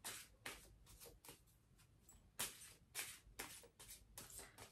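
Oracle cards being handled, shuffled and drawn: a string of soft, short card rustles and slaps, about seven at irregular intervals.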